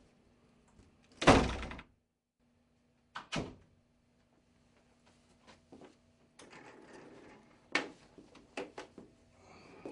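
An office door shutting with a loud thud, followed a couple of seconds later by a smaller knock. Later an office chair rattles and clicks as someone sits down on it.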